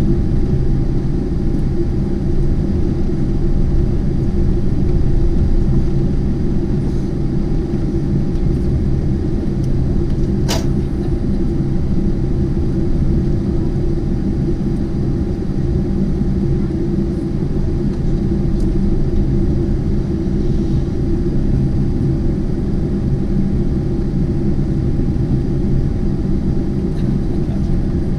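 Steady low cabin rumble inside a Boeing 747-8 on the ground after landing, with engine and air-system noise and a faint steady tone above it. A single sharp click about ten seconds in.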